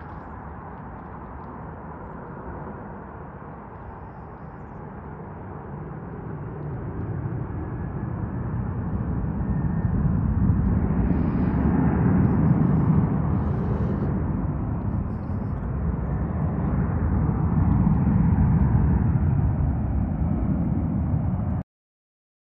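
Jet aircraft engine noise, a low, steady rumble that grows louder over several seconds, eases a little and swells again, then cuts off abruptly near the end.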